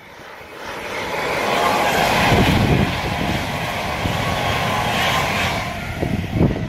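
Avanti West Coast Class 390 Pendolino electric train passing beneath: a rush of wheels and air that builds over the first couple of seconds, holds steady, then fades away near the end.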